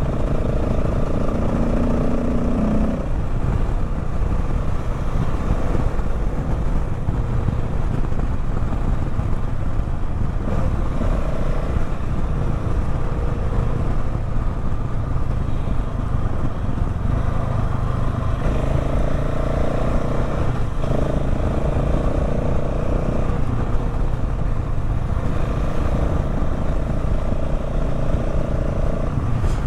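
Motorcycle engine running at a steady cruise along with continuous wind and road noise, the engine's note strengthening and easing a little in stretches.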